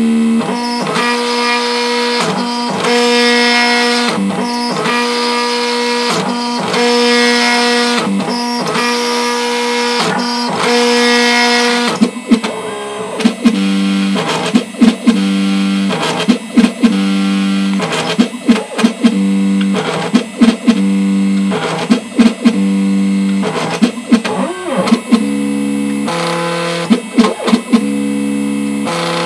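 ShopBot Desktop CNC router milling ABS plastic with a 5/32-inch three-flute end mill at 6000 RPM. A steady pitched machine whine runs under a hiss of cutting noise that is strongest in the first dozen seconds. After that the tones jump between a few pitches and drop out briefly every second or so as the head changes direction.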